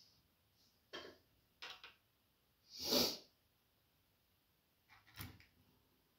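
Faint handling noises from painting at a desk: a few soft knocks and rustles, with one louder rush of noise that swells and fades over about half a second, about three seconds in.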